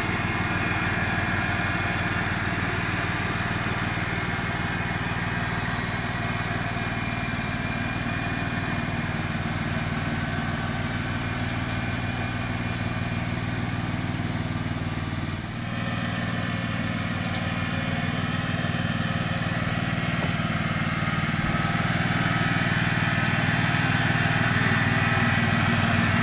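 Riding lawn mower's small gasoline engine running steadily as it drives across the grass, with a brief break about halfway through where the recording cuts.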